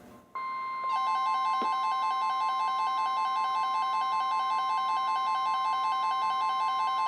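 NOAA Weather Radio 1050 Hz warning alarm tone, a steady high tone switching on about a third of a second in, for a tornado warning. About half a second later a bank of weather radio receivers set off their own alert alarms: several rapid two-tone warbling beeps layered over the steady tone.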